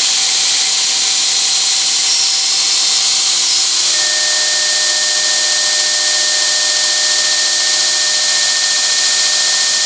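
Belt grinder's electric motor running steadily at nominal speed on a frequency inverter, with a rushing noise and a thin whistle. A higher whistle tone comes in about four seconds in. The whistle goes away when the frequency is cut to about 45 Hz, and the owner suspects the motor.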